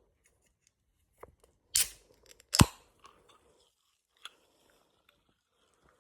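A can of Coke being cracked open: a sharp crack with a short fading hiss nearly two seconds in, then a louder sharp click, among a few faint taps.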